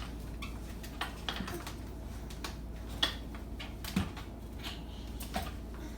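Faint, scattered light clicks and taps, about one every half second to second, over a low steady hum.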